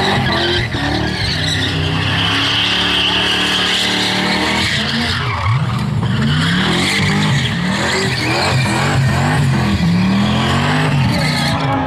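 Turbocharged 383 V8 of a Holden VL Commodore doing a burnout, engine held at high revs with the rear tyres spinning and squealing. From about halfway the revs rise and fall over and over as the driver works the throttle.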